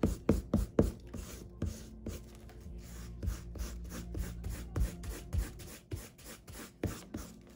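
Eraser rubbing back and forth on paper in quick, irregular strokes, about two to three a second, rubbing out pencil sketch lines under the finished ink drawing.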